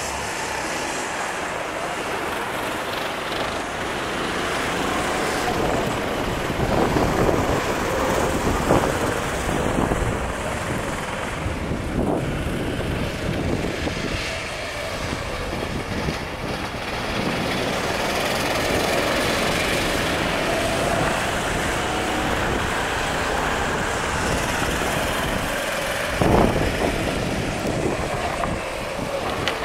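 Sodi RT8 rental karts' single-cylinder four-stroke engines running as the karts lap a wet track. The engines grow louder as karts pass close, about seven to nine seconds in and again briefly near the end.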